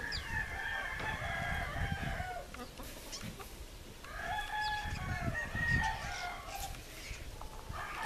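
A rooster crowing twice, each crow a long call of about two seconds, the second starting about halfway through.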